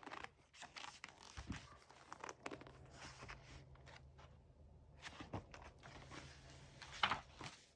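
Faint rustling and scattered small clicks of a picture book's paper pages being handled and turned, with a somewhat louder one near the end.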